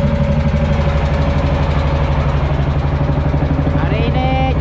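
Small fishing boat's inboard engine running steadily under way: a low, constant drone with a fast, even pulse.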